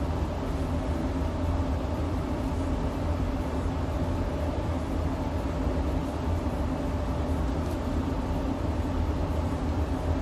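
Steady low mechanical rumble and hum of workshop background machinery, unbroken and without distinct strokes or knocks.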